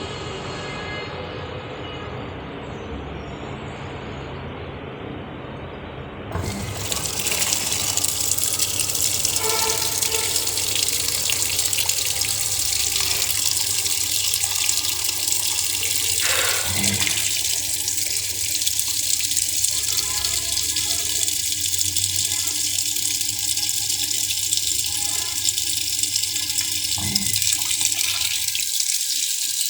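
Sharp washing machine taking in water: a motor hum for the first six seconds, then water suddenly starts rushing into the tub as a loud, steady hiss. A few dull knocks come through it.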